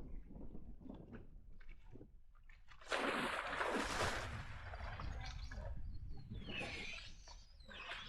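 A sudden big splash about three seconds in as a person falls into the water, followed by water sloshing and dripping.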